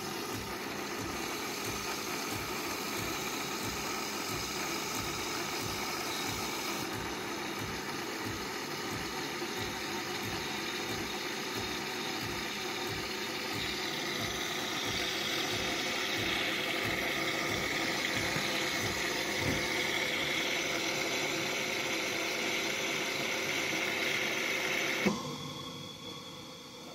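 De'Longhi Magnifica Evo automatic coffee machine frothing milk from its milk carafe and dispensing it into a glass: a steady pump buzz with the hiss of steam and milk. In the second half a whistling tone rises slowly as the glass fills. It stops with a click near the end.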